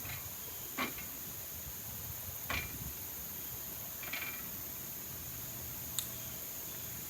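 A steady, high-pitched chorus of insects drones on continuously. Four short sounds break in at intervals of about one and a half to two seconds.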